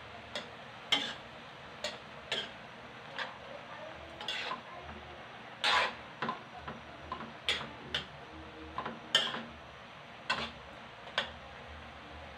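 A spatula knocking and scraping against a metal wok as shredded cabbage and carrots are stirred, in irregular sharp clinks about one or two a second.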